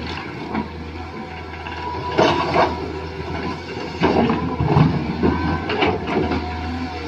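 Small electric gear motors of toy RC construction vehicles whirring steadily, with repeated clattering knocks of plastic parts working.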